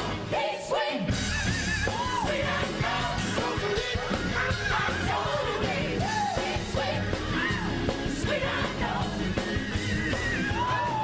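Upbeat gospel-style TV theme song: lead and backing voices singing with shouts over a band with a steady beat. The low end drops out briefly about a second in.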